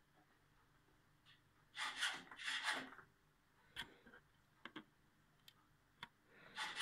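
Handling noise: two short bouts of rubbing about two seconds in, a few light clicks, and another brief rub near the end.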